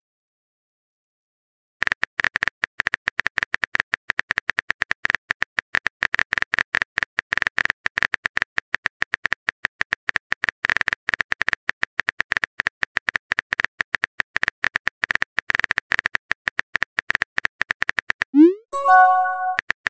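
Texting app's keyboard typing sound effect: a rapid, steady run of key clicks starting about two seconds in. Near the end the clicks stop for a rising whoosh and a short chime as the message is sent.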